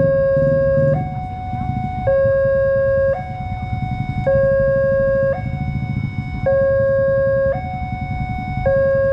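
Railway level-crossing warning alarm sounding: an electronic two-tone signal alternating between a lower and a higher tone about once a second, the signal that a train is approaching. A steady low rumble runs beneath it.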